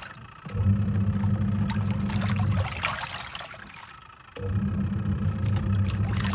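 Twin-tub washing machine's wash tub churning clothes in water: the pulsator motor hums for about two seconds, stops, then starts again about two seconds later, with water sloshing and splashing throughout.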